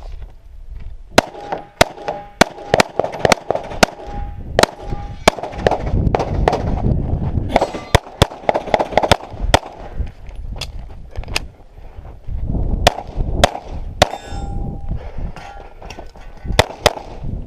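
Pistol shots fired in quick strings, often about half a second apart, with pauses between strings. After several of the shots a metal steel target rings briefly with a clang.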